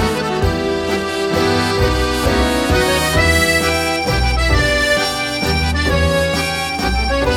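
Instrumental background music with a melody over a steady bass line.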